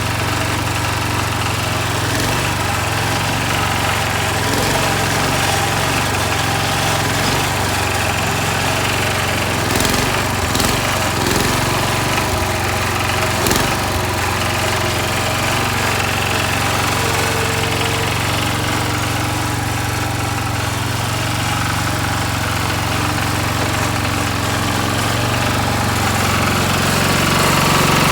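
Sears Suburban garden tractor engine running steadily, with a few short knocks about halfway through, then picking up speed and getting louder near the end.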